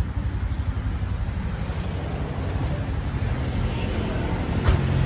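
Motorized tuk-tuk running on the road: a steady low engine rumble with road noise. There is a click about four and a half seconds in, after which the engine note grows louder.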